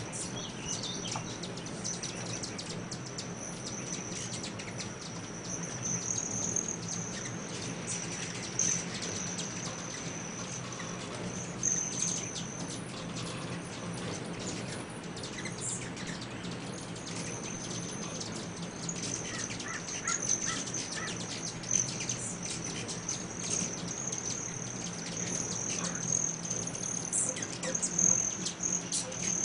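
A crowd of hummingbirds at feeders: many short, high chips and squeaky chatter over a steady high-pitched buzz.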